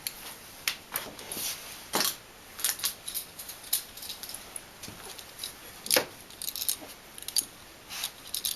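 Light metallic clicks and rattles as a new electrical outlet and its wires are handled and fitted, with two sharper clicks about two seconds and six seconds in.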